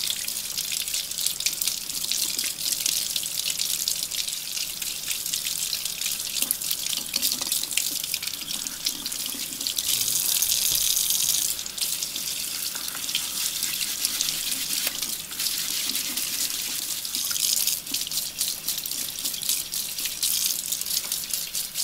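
Kitchen faucet running, its stream splashing into a sink and over steel lantern parts being rinsed by hand. It gets louder for a second or two about ten seconds in, with small clicks of the metal parts throughout.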